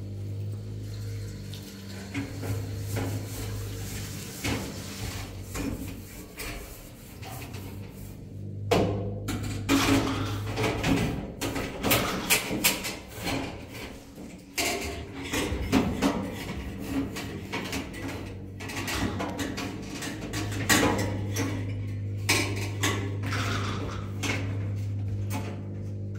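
Irregular knocks, clinks and clattering over a steady low hum, the knocks coming thickest from about nine seconds in.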